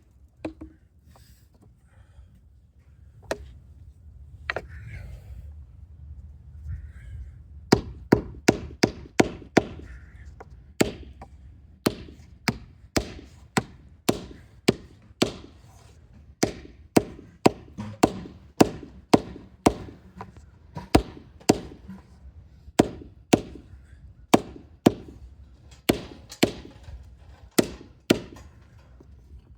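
Wood being struck over and over with a hand tool. A few scattered knocks come first, then from about a quarter of the way in a steady run of sharp blows, about two a second, some in quick pairs.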